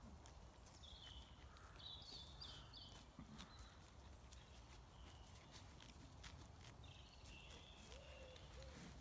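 Faint field ambience of sheep grazing close by: scattered soft clicks of grass being cropped. Small birds chirp in short high phrases about a second in and again near the end, over a low wind rumble.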